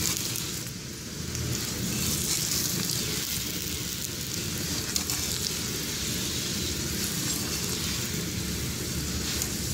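Cooking oil sizzling steadily under a potato-stuffed paratha frying on a hot tawa (flat griddle) as it is shifted around with tongs.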